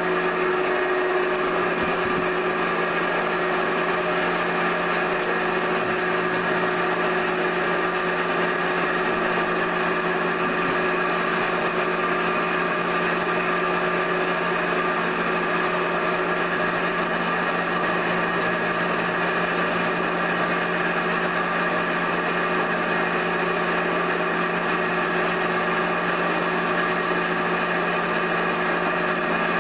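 Steady machine hum in a pottery workshop: an electric motor or similar shop machinery running at one unchanging pitch, with several fixed tones layered together.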